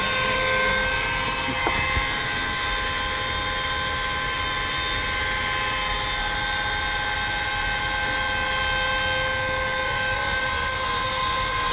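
Electric linear actuators in a DIY standing desk's legs running steadily as they lower the desktop: an even motor whine with several held tones.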